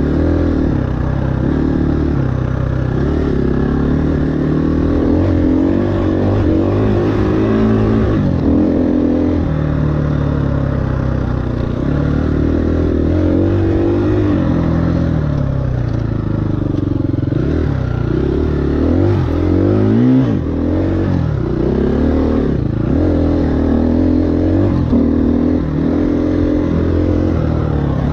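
2018 KTM 350 EXC-F's single-cylinder four-stroke engine revving hard while being ridden, its pitch climbing and dropping again and again with throttle and gear changes.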